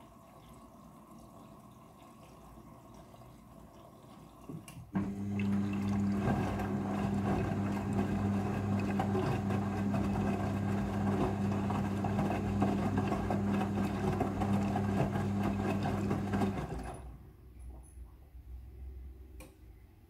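Midea front-loading washing machine: water trickling in quietly during filling, then from about five seconds in the drum motor hums steadily as the drum turns, tumbling the wet laundry with sloshing rinse water. The motor stops about three and a half seconds before the end, leaving quieter water sounds and a faint click.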